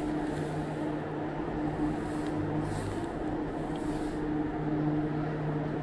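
Steady low mechanical hum with a drone of a couple of pitched tones that fade in and out.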